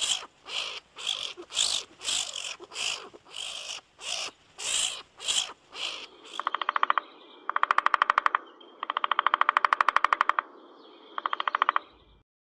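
A striped skunk making short, breathy huffs, about three a second. About six seconds in, a great spotted woodpecker drums on a tree in four rapid rolls of about a second each.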